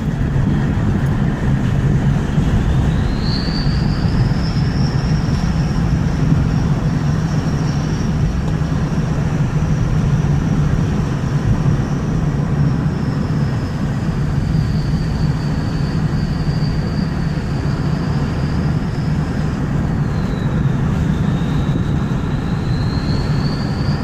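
Ford F350's engine running with a steady low drone, over which a thin, high turbocharger whistle rises about two seconds in and holds. The whistle's pitch sags around the middle, dips a little further near the end, then climbs again.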